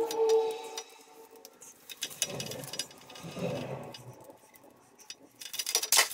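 Screwdriver working the terminal screws of an old multi-gang light switch: small clicks and clinks of metal on metal and the rustle of wires being moved, thickest near the end. A steady tone sounds briefly within the first second.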